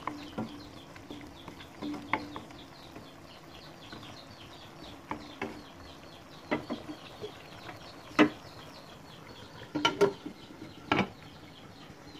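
Wooden spatula knocking and scraping in a nonstick wok of simmering curry sauce around a whole fish: a few sharp knocks, loudest about eight and ten seconds in, over a steady run of faint high ticks.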